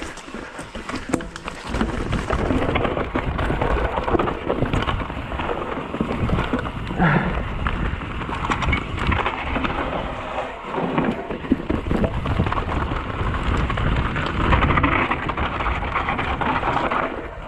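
Mountain bike rolling fast down a dirt and rock trail: wind rumbling on the action camera's microphone over tyre noise, with a steady patter of small rattles and knocks from the bike. The noise builds after about two seconds and stays loud.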